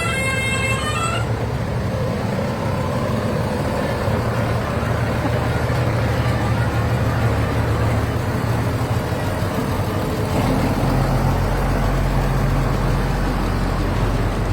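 Tractor engine running steadily with a low hum, its note deepening about ten seconds in. A horn sounds a short run of stepped notes that ends about a second in.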